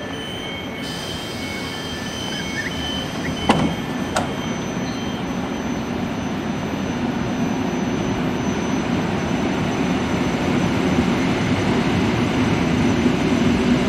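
EN57 electric multiple unit's doors slamming shut, two sharp bangs about three and a half and four seconds in. The train then starts to pull away with a steady rumble that slowly grows louder.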